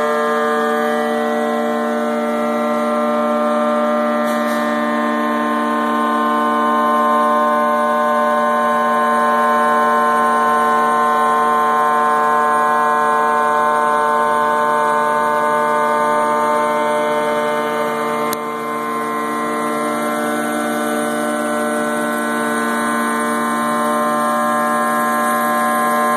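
CNC router spindle running at speed with a 1-inch bullnose bit profiling the edge of a Corian solid-surface slab: a steady, loud whine of many tones over the noise of the cut, dipping briefly about two-thirds of the way through.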